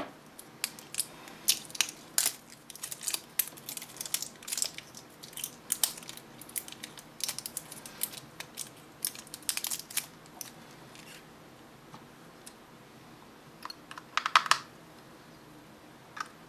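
AAA batteries and hard plastic being handled: a run of small clicks, taps and crackles, then a quick cluster of clicks about fourteen seconds in as the batteries are pressed into a plastic battery compartment.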